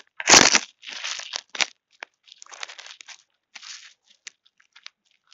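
Rustling and crinkling in short bursts, loud at first and thinning out to scattered faint crackles after a few seconds.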